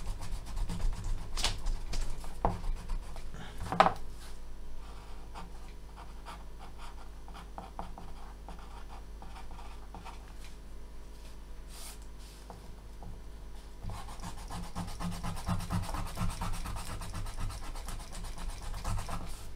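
Eraser rubbed back and forth on paper to rub out pencil lines, with a sharp tap about four seconds in. Then a quieter stretch of pencil scratching on paper while drawing, and erasing again from about two thirds of the way through.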